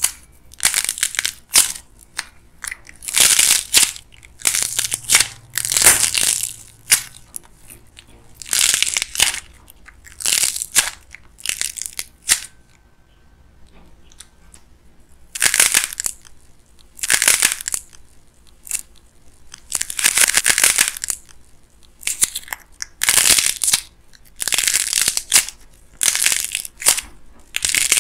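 Dried clay crust crackling and crunching as fingers squeeze and break it over the soft clay inside, in a run of separate crunchy bursts with a pause of a few seconds midway.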